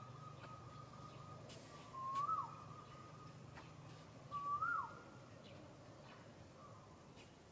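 A bird's short whistled call, a note that rises and then drops sharply, given twice about two and a half seconds apart.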